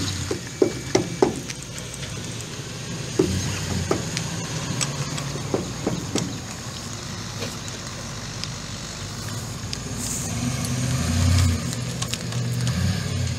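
Ford F350 Super Duty's 6.2L gas V8 engine running steadily, with several sharp clicks and knocks in the first six seconds. The engine note swells briefly about ten to twelve seconds in.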